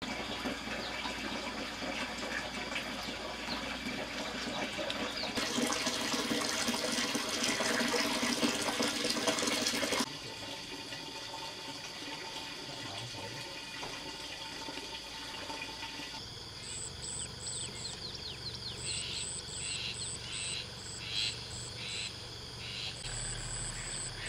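Outdoor ambience that changes abruptly several times: a steady rushing, water-like noise that grows louder about five seconds in and cuts off sharply about halfway through. A quieter background follows, with high chirps repeating in short, even runs during the last third.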